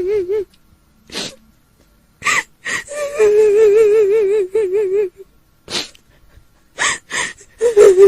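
A woman's high, trembling wail, crying in the manner of a kuntilanak ghost. A long quavering cry in the middle breaks into short sobs, and sharp gasping in-breaths come between the cries.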